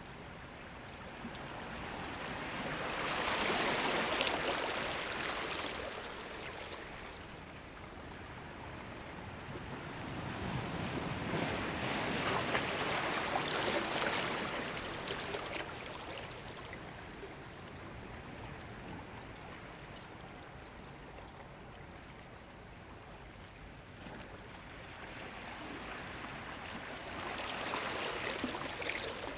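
Ocean waves washing in on a shore: a continuous rush of water that swells three times, a few seconds in, around the middle and near the end, and ebbs between.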